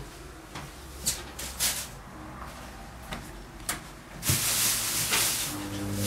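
Hoover HTI 247 top-loading washing machine running a wash cycle: a few soft knocks and swishes at first, then from about four seconds in a louder, steady swishing hiss, and near the end a steady motor hum starts up.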